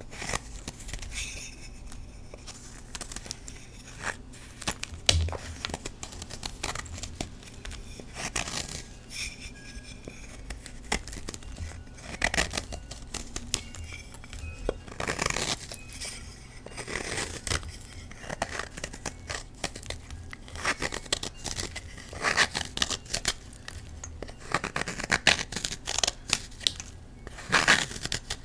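A knife blade shaving thin flakes off a block of Colift gym chalk: a run of dry scraping strokes at an uneven pace, some louder than others.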